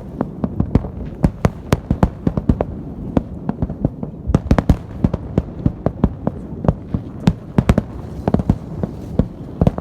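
Fireworks salute: a rapid, unbroken volley of shell bursts, about four or five sharp bangs a second over a continuous low rumble.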